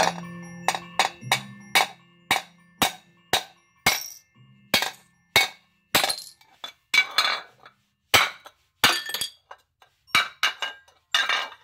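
A ceramic soup plate struck again and again against a ceramic tile floor, sharp clinks about two a second, until it cracks and pieces break off about halfway through; later strikes are followed by short rattles of the broken shards.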